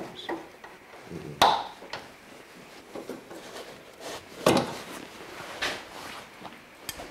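Screwdriver and pliers working at a brake hose's metal retaining clip: a few sharp clicks and knocks of metal on metal. The strongest comes about one and a half seconds in, and there are two more around four and a half and five and a half seconds in.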